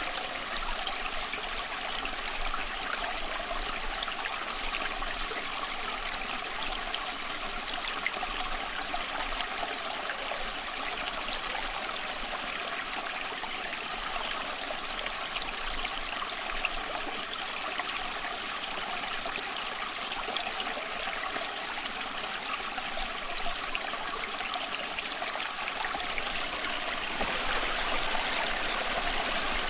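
A stream running, a steady rush of flowing water that gets a little louder near the end.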